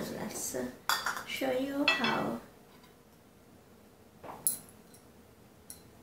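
Dishes clinking as a small glass bowl and serving plates are handled on a countertop, with a sharp clink about four and a half seconds in. A brief murmured voice is heard in the first two seconds.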